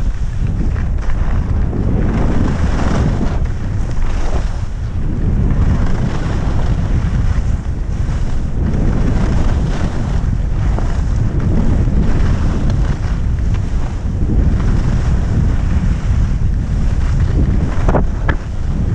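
Heavy wind buffeting on a GoPro's microphone during a downhill ski run, with the hiss of skis scraping and carving on packed snow swelling and fading through each turn.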